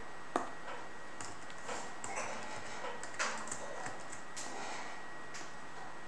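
Stylus on a drawing tablet while handwriting: a sharp tap about a third of a second in, then scattered short scratchy pen strokes, over a faint steady high-pitched tone.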